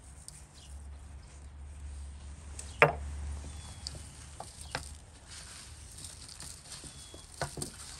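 Hands rubbing dried herbs into raw lamb and bull testicle pieces on a steel tray, with soft wet handling of the meat and a few knocks. One sharp knock about three seconds in is the loudest sound.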